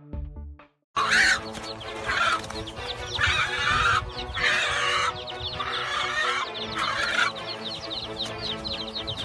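A hen squawking and clucking in repeated harsh bursts about a second apart during a fight with an eagle, starting about a second in, over background music.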